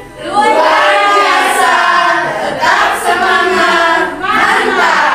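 A group of mostly women's voices singing a short class song together, in a few sung phrases.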